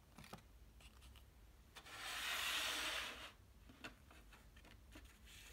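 A paper CD booklet rubbing and sliding for about a second and a half in the middle, with a few light clicks of a plastic CD jewel case being handled before and after.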